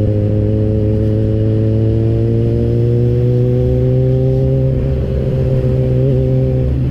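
Yamaha motorcycle engine pulling under throttle, its note rising slowly for about four seconds and then holding, before it falls away near the end as the throttle is closed.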